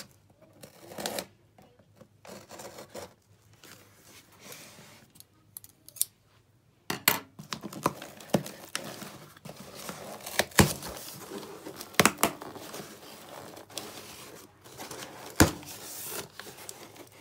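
Packing tape on a cardboard shipping box being cut, peeled and torn away, with cardboard flaps rustling. Sharp snaps stand out several times, busier in the second half.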